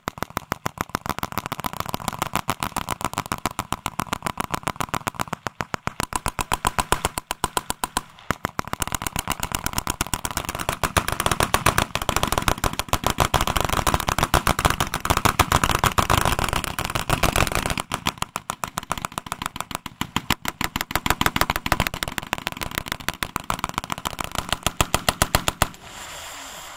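Several .303 Vickers machine guns firing together in long, rapid, overlapping bursts, with short lulls a few times. The firing stops just before the end.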